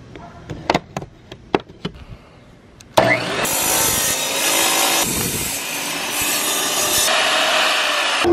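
A few light clicks and taps from marking the tile, then about three seconds in a wet tile saw starts up and cuts through a mosaic tile sheet: a loud, steady grinding that runs on.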